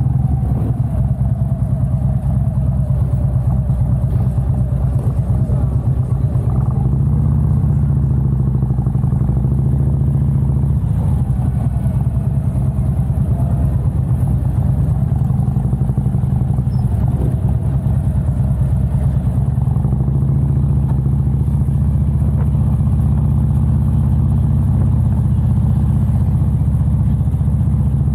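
A motorcycle engine running steadily as the bike rides slowly along, a deep even note heard close up, with other engines rising and falling in pitch now and then.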